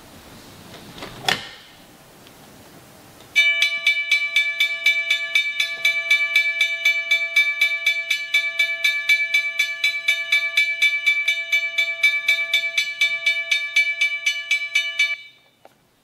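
A recorded railroad crossing bell plays through a small speaker from an Arduino-driven MP3 sound module, ringing in rapid, even strokes for about twelve seconds. It follows a click about a second in and stops suddenly near the end.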